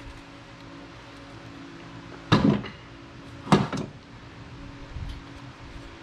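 Two clanks about a second apart as the hinged lens door and housing of an old metal traffic signal are opened and handled.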